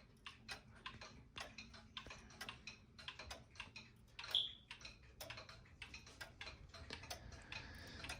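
An Ithaca hall grandfather clock ticking steadily with an even tick-tock from its pendulum-driven movement, with one louder, ringing click about four seconds in.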